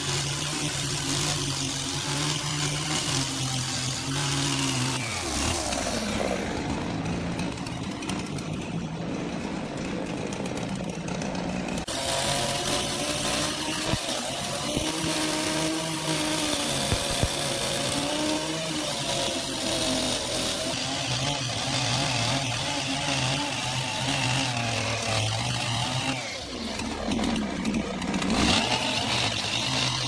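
Two-stroke chainsaw running at high revs while cutting through a large log. The engine's pitch sags and recovers as the chain bites into the wood.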